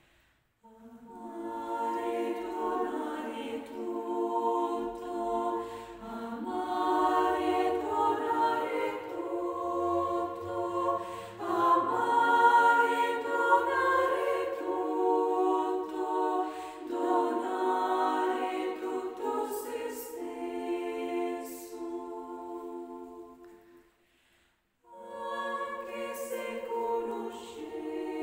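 A choir singing unaccompanied in long, sustained phrases, breaking off briefly about 24 seconds in and then starting again.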